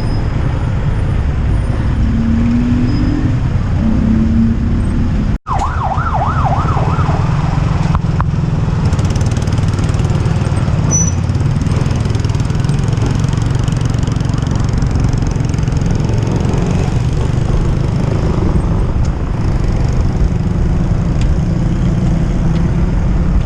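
Heavy wind rumble on the microphone from riding a bicycle fast downhill, steady throughout. About five and a half seconds in the sound cuts out for an instant, then a brief fast warbling tone rises and falls for about two seconds.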